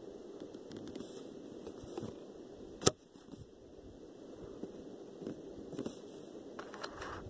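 Close handling noise, with scraping and crackling of packaging. One sharp click about three seconds in.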